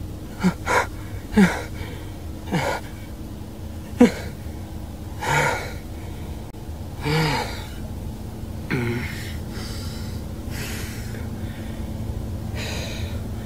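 A frightened woman gasping and whimpering: about five short, sharp gasps in the first four seconds, then slower, heavy, shaky breaths every second or two, over a steady low hum.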